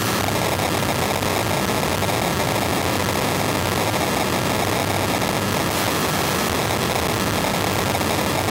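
Pulsed radio emissions from mobile-phone base-station antennas made audible through a high-frequency detector, heard as a steady, dense buzzing noise.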